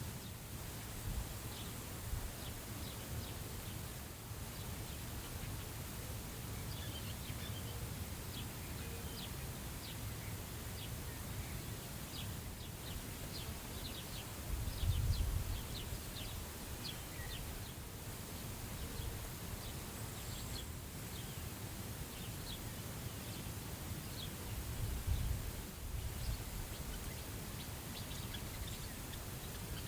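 Steady prairie wind across the grass, with a low rumble of wind on the microphone that gusts stronger about halfway through and again later. Scattered short bird chirps come through over the wind in the middle stretch.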